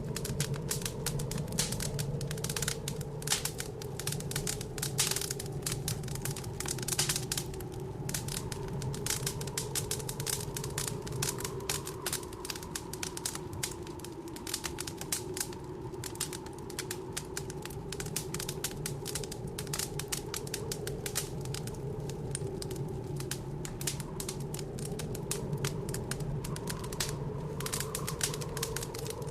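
Wood fire in a fireplace crackling with rapid, dense pops and snaps, over a steady low howl of blizzard wind.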